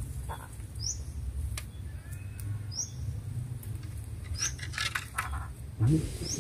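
A small bird repeats a short, high chirp about every two seconds over a low wind rumble. There are a few faint clicks, like steps on stony ground, and a brief louder low sound near the end.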